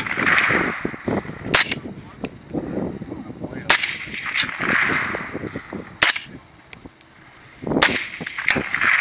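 Suppressed .300 Blackout rifle firing about six shots at irregular intervals, alternating 220-grain subsonic and 110-grain supersonic rounds; some shots are followed by a hissing echo.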